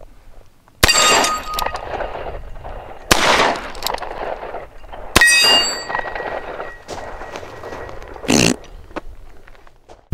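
Three .45 ACP shots from a replica 1858 Remington revolver fitted with a Howell conversion cylinder, about two seconds apart. After each shot a steel plate target rings on when hit, the last ring lasting a few seconds. There is a shorter, duller knock near the end.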